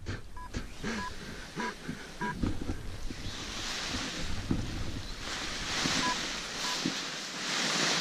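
Paraglider wing's nylon fabric and lines rustling as they are gathered up by hand, with wind buffeting the microphone. Short, evenly pitched electronic beeps come about every two-thirds of a second during the first two seconds, and twice more later.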